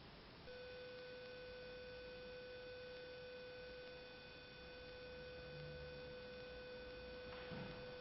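A faint, steady tone held at one pitch with fainter overtones, starting about half a second in and running on without change.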